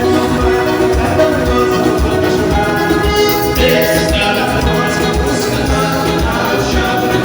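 Band music with a steady low beat under layered melody lines, Latin American in style.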